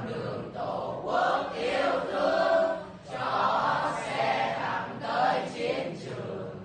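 A class of boys and girls singing a Vietnamese revolutionary song together as a chorus, with a short pause between phrases about halfway through.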